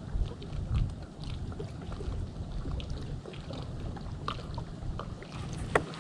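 Water lapping and trickling against a small fishing boat's hull, over a low, uneven rumble of wind on the microphone, with scattered light ticks and one sharper click near the end.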